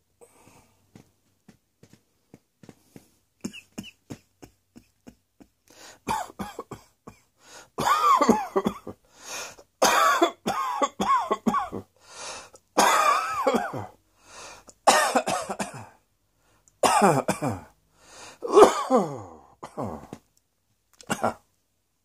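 A person coughing in repeated loud fits, some coughs voiced with a falling pitch, after a few seconds of faint throat clicks and breaths.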